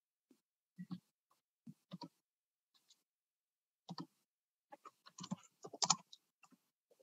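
Faint, irregular clicks and taps from computer use: a few scattered clicks about a second and two seconds in, a pair near four seconds, then a quicker run of clicks around five to six seconds.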